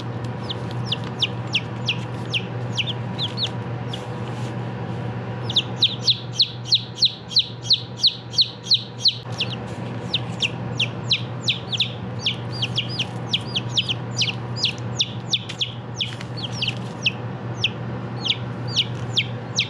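Five-day-old chicks cheeping: short, high, falling peeps in quick runs, with a loud, fast run of about three peeps a second from about six to nine seconds in.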